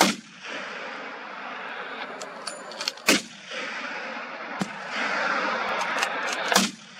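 Three gunshots about three seconds apart, the first right at the start, with a few fainter sharp cracks between them, over a steady hiss of background noise.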